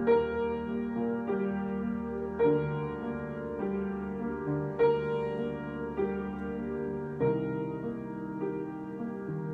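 Solo piano improvisation in a slow, gentle style: sustained chords struck about every two and a half seconds, ringing between each new chord.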